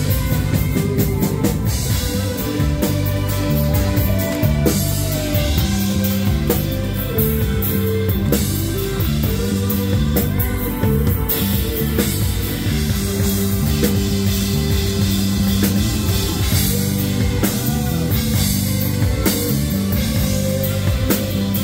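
Live band playing a song, with drum kit, electric bass and keyboards.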